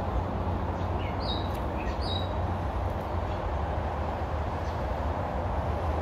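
Steady low outdoor rumble, with a few short bird chirps about one and two seconds in.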